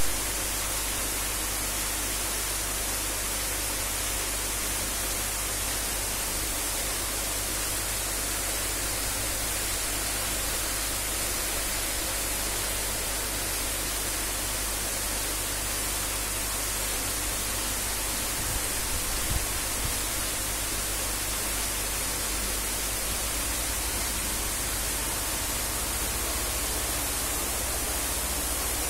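Steady hiss of water bubbling and splashing in a biofloc aquaculture tank, churned by aeration hoses while fresh water is piped in, with a low steady hum underneath. A few faint bumps come about two-thirds of the way through.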